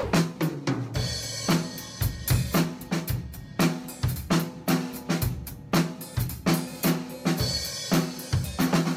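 Drum kit played to a steady beat, with kick, snare, hi-hat and cymbals, about two strong hits a second, over backing music.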